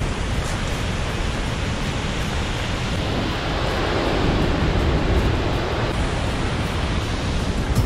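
Steady rush of water from Gullfoss, a large waterfall, an even unbroken noise.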